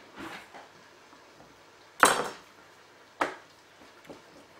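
Metal kitchen knife knocking on a wooden worktop: a sharp clack with a short ring about two seconds in, then a second, shorter knock about a second later.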